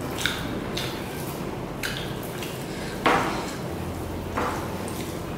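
Dishes clinking on a glass table during a meal eaten by hand: a handful of light, separate clinks and taps, the loudest about three seconds in.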